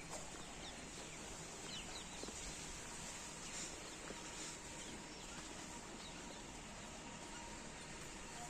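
Faint, scattered bird calls, short high chirps every second or so, over a quiet outdoor background.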